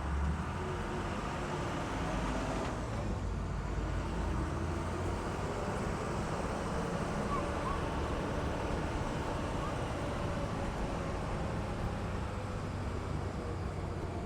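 Engine of a 1942 GM-built amphibious Duck (DUKW) running steadily under way, a constant low drone.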